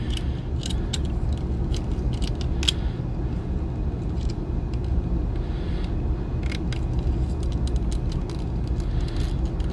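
Scattered small plastic clicks and taps as a toy chainsaw accessory is worked into an action figure's hand, over a steady low background rumble.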